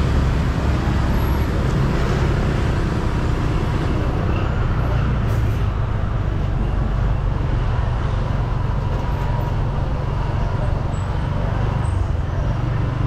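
Street traffic: the steady rumble of motor vehicle engines passing and running, with no single event standing out.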